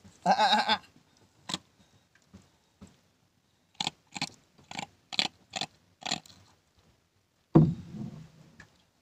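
A large freshly landed fish thrashing on the line beside the boat: a short grunt right at the start, then about six sharp slaps in quick succession a few seconds in, and a heavy thud near the end, the loudest sound.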